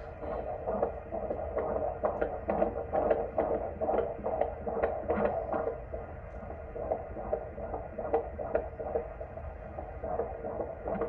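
Fetal heartbeat played through a handheld fetal Doppler's speaker: a fast, even whooshing pulse over a steady background hiss, a sign the baby's heart is beating normally.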